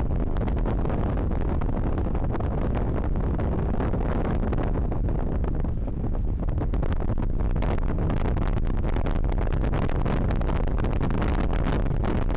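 Strong wind buffeting the microphone aboard a sailing yacht in over 22 knots of wind, a steady dense rumble that dips briefly about six seconds in.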